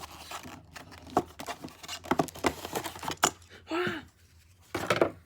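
Close handling noise of small plastic microphone parts and packaging: a run of irregular clicks and short rustles. A brief vocal sound comes about four seconds in, and a louder rustle near the end.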